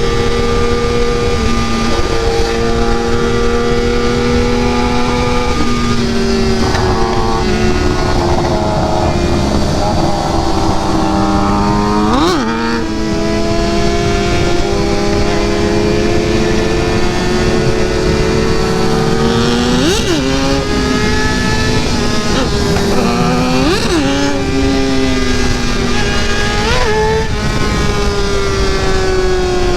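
Sport motorcycle engine running at road speed under wind noise, its note drifting slowly up and down as the bike cruises. Several times a brief sharp rise and fall in pitch cuts through.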